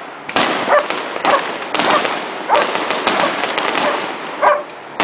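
Fireworks going off in a rapid run of bangs and crackles, with a dog barking several times among them.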